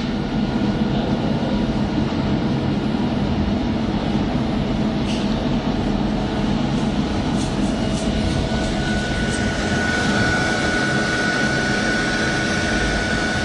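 Bench-top spot laser welder's internal water cooler running: a steady mechanical hum with several held tones. A higher steady whine comes in about two-thirds of the way through.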